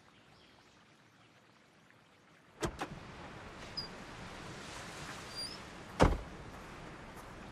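Near silence, then about two and a half seconds in two sharp clicks from a car door, and at about six seconds the door slammed shut with one heavy thump. Behind them runs a steady outdoor hiss of wind and surf, with a couple of faint bird chirps.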